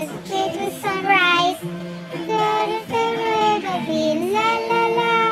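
A song with a high singing voice over music, the voice holding long wavering notes with vibrato.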